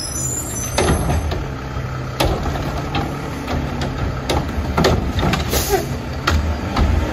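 Front-load garbage truck with a Curotto Can cart arm running at the curb as the arm grabs, dumps and sets down a wheeled trash cart. The diesel engine drones steadily under a series of sharp clanks and knocks, with a short hiss about five and a half seconds in.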